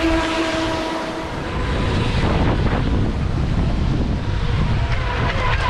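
The whine of a radio-controlled jet boat's motor fades away in the first second. Heavy wind rumble on the microphone and breaking surf follow and are the loudest sound. A faint motor whine comes back near the end.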